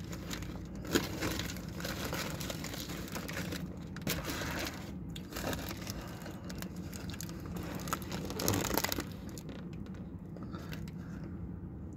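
Paper burger wrapper crinkling and rustling as it is unfolded and handled, in irregular crackly bursts, quieter near the end.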